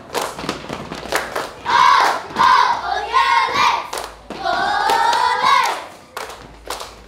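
Rhythmic clapping and stomping by a group of children, about three beats a second, with loud chanted shouts in unison during the middle stretch, as in a clap-and-stomp cheer routine.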